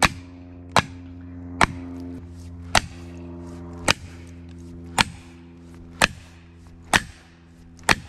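Felling wedges being driven into a tree's back cut with the poll of an axe: a steady series of sharp strikes, about one a second, nine in all, each ringing briefly. A steady low hum runs underneath.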